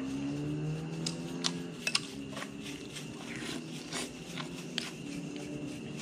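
Metal spoon clinking against a ceramic bowl while eating noodle soup: several short, sharp clinks at irregular intervals, over faint held low tones in the background.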